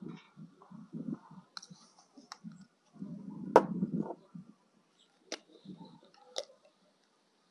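A few sharp clicks and knocks, the loudest a little over three seconds in, among low muffled thuds.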